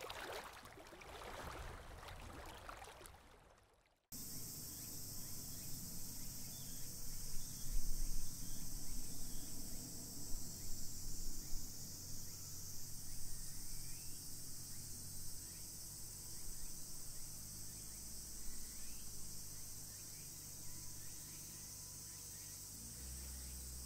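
A steady, high-pitched insect chorus droning in woodland, over a low rumble. It follows a hiss that fades and cuts off abruptly about four seconds in.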